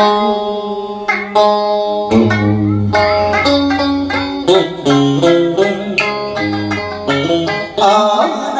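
Cải lương instrumental interlude on đàn sến and guitar: plucked melodic runs, some notes bent, over low bass notes that come in about two seconds in.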